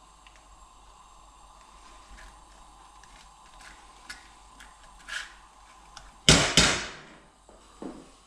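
Light taps and scrapes of a spoon against a glass jug and a frying pan as egg mixture is spread. Then two loud metal clanks of a pan being set down on the gas hob's grates, and a smaller knock near the end.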